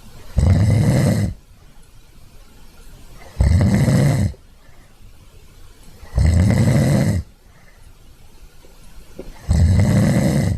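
Sleeping cat snoring: four loud snores, each about a second long, coming about every three seconds.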